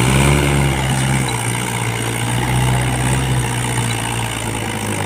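Mahindra 575 tractor's four-cylinder diesel engine running steadily under heavy load as it hauls a loaded trolley through soft dirt.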